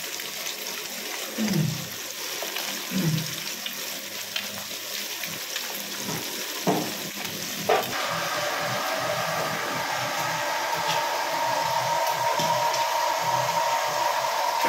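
Fish pieces frying in hot oil: a steady sizzling hiss with a few soft pops and clicks. About eight seconds in, a steady whirring hum comes in under the sizzle.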